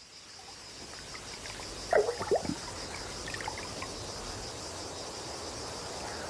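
Crickets chirping in a steady pulsing rhythm, fading in from near silence, with a brief cluster of short, sharp sounds about two seconds in.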